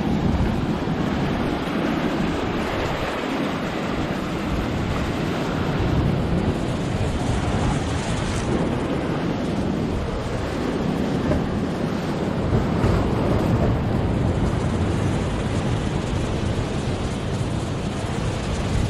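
Ocean surf breaking and washing over black lava rocks, with wind buffeting the microphone.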